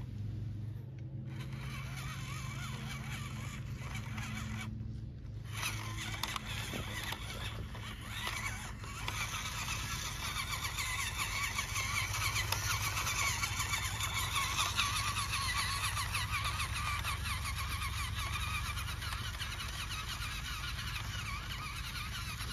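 Scale RC pickup truck driving over dirt, with a steady low hum from its drivetrain. From several seconds in, a busy chorus of bird chirps grows and becomes the loudest sound.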